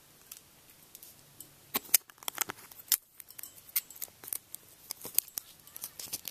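Plastic forks handled while rubber bands are stretched around them: quiet at first, then from about two seconds in an irregular run of small sharp clicks and snaps.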